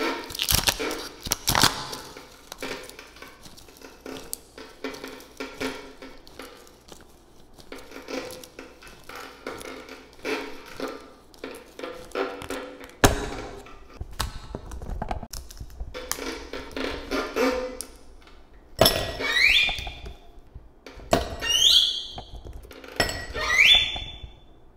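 Ice cubes knocked and twisted out of a plastic ice cube tray and clinking into a glass, with many small knocks and one sharp knock about halfway. A faint held violin drone sounds in the first part, and three short rising squeals come near the end.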